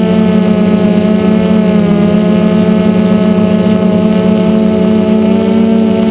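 DJI F450 Flame Wheel quadcopter's electric motors and propellers buzzing steadily in a hover, heard loud and close from the camera on the craft. The pitch wavers slightly now and then as the motors adjust.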